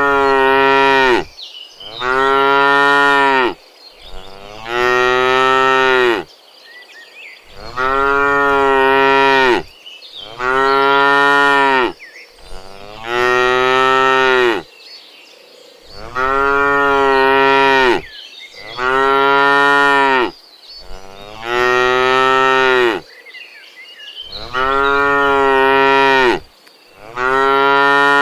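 Cattle mooing: a long run of loud, drawn-out moos, each about two seconds long, repeating every two to three seconds with short pauses between.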